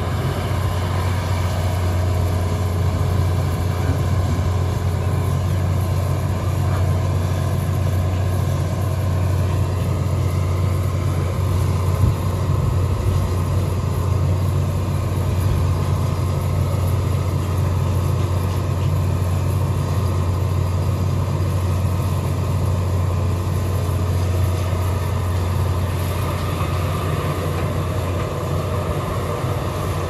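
Hitachi EX200 hydraulic excavator's diesel engine running steadily under working load as the machine digs and swings, with a single knock about twelve seconds in.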